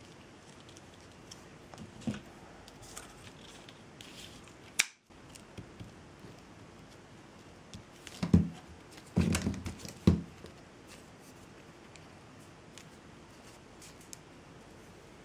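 Hands handling jute thread and tools on a craft table: scattered light taps and rustles, a sharp click about five seconds in, and a cluster of louder knocks and scrapes about eight to ten seconds in.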